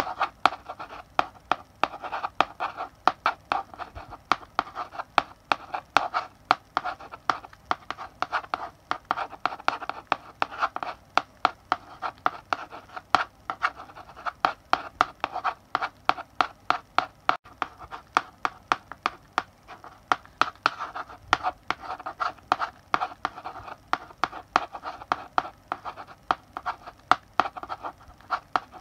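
Chalk writing on a blackboard: quick taps and short scratching strokes of the chalk, several a second, going on without a break.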